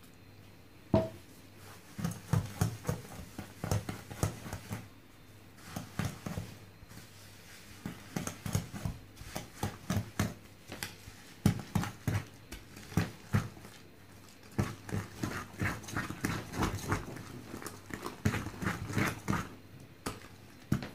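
Hand wire whisk stirring shredded coconut into a thick, wet batter in a bowl: runs of quick scraping and clicking strokes against the bowl, with short pauses between runs and one sharp clink about a second in.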